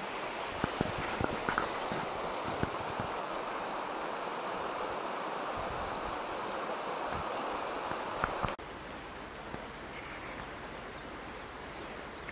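Mountain river rushing over rocks, a steady noise with a few light clicks in the first seconds. It cuts off abruptly about eight and a half seconds in, leaving a quieter outdoor background.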